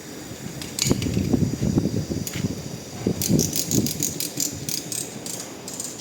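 Irregular rattling and scraping, with a quick run of sharp clicks in the second half.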